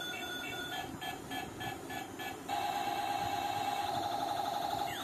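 Battery-operated toy robot's built-in speaker playing electronic sound effects: a pulsing tone, then quick beeps about four a second, then from about two and a half seconds in a louder steady warbling tone that ends in a short sweep.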